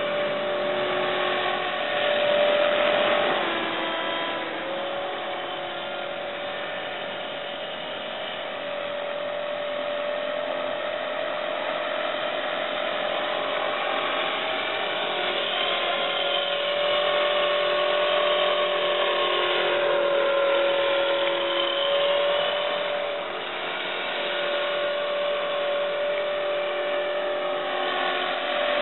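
450-size RC helicopter with a scale MD530 fuselage running in a hover: a steady motor and rotor whine that wavers slightly in pitch and loudness as the throttle changes, dipping briefly twice.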